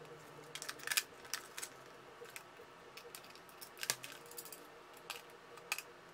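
Scattered light clicks and taps from the plastic case and dial of a wall clock as it is handled and fitted together, about a dozen of them, irregularly spaced.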